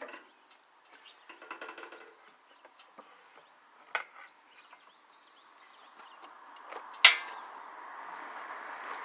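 Scattered clicks and knocks of metal and wood as a yellow engine crane and a crated lathe are handled, with one sharp, loud knock about seven seconds in. After it a steady noise grows louder.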